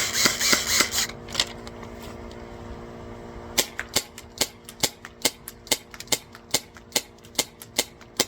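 Airsoft gun being fired shot after shot, sharp cracks at about two to three a second, starting a few seconds in.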